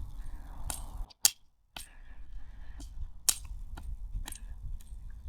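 Wind buffeting the microphone as a low rumble, broken by scattered sharp clicks. A little over a second in, the sound cuts out for about half a second, apart from one loud click.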